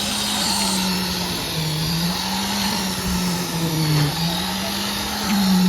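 Engine of a site concrete mixer running steadily, its pitch sagging and recovering a few times as the load on the drum changes.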